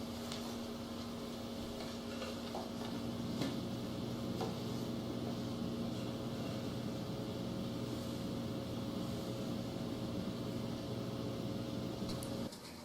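A steady electrical or mechanical hum with a few faint clicks. It cuts off suddenly near the end.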